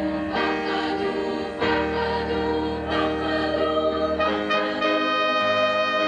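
A choir singing long held chords that change about every second and a half.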